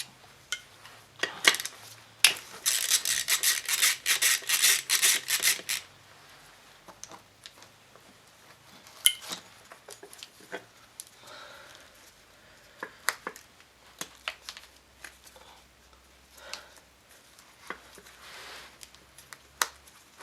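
Hand tools and small metal parts being worked while unscrewing the ignition parts of a scooter engine: a dense run of rapid metallic clicks for about three and a half seconds early on, then scattered light clinks and taps of metal on metal.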